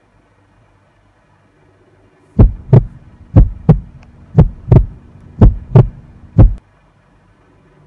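Heartbeat sound effect: paired lub-dub thumps, about one pair a second, starting a couple of seconds in and stopping after four and a half beats.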